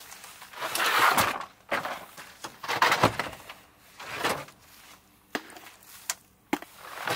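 Gear being handled on a pickup's tailgate and bed liner: rustling swishes of clothing and gear, with a few knocks and thumps, and two short sharp clicks near the end.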